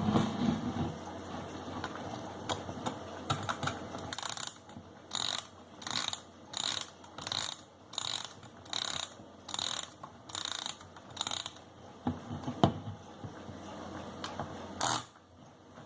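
Junghans Trivox Silentic mechanical alarm clock being wound, its winding key ratcheting in a steady series of about eleven turns, roughly one every two-thirds of a second, with scattered clicks of handling before and after.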